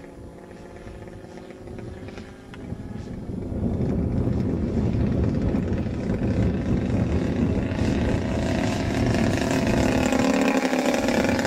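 The 50cc single-cylinder two-stroke gasoline engine (DL-50) of a quarter-scale RC Extra 300S aerobatic plane running in flight. It is faint at first and gets louder from about three and a half seconds in as the plane comes close, and its pitch bends up and down as it passes near the end.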